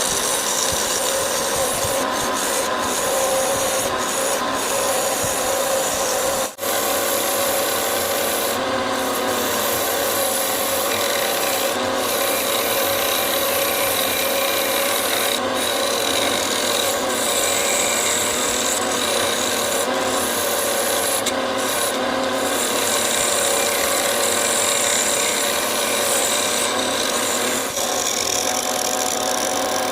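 Wood lathe running with a steady hum while the spinning wood is rubbed continuously by a tool, a steady rasping sound. There is one brief break about six seconds in.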